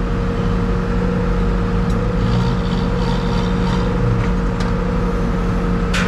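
HEPCO HLB95B backhoe loader's diesel engine running steadily under load while the boom lifts and swings a suspended cabin, with a constant low hum and a steady higher whine. A few faint clicks of metal come near the end.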